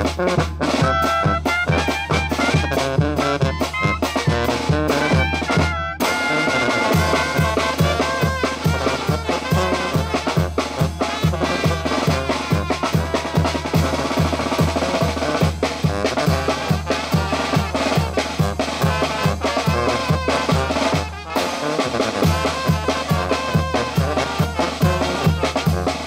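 Tamborazo band playing: clarinets and brass (trumpet, trombone) over a sousaphone bass line and a steady beat on the tambora bass drum with its mounted cymbal and a snare drum, with two very short breaks.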